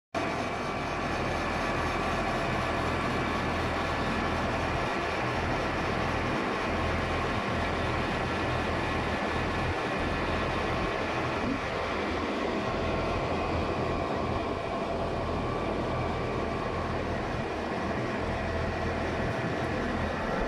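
Lathe running steadily while turning a long 160 cm shaft: an even mechanical hum with a few steady high tones above it.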